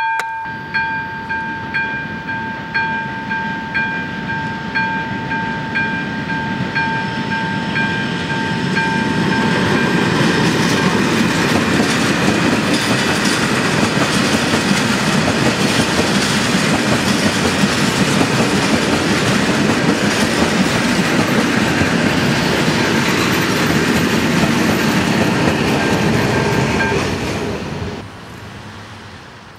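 Level-crossing warning bell (ZV 2 on an AŽD 71 crossing) ringing in evenly repeated strokes, about one and a half a second. From about nine seconds in, a freight train passes loudly and drowns the bell. The train noise and the bell both stop a couple of seconds before the end.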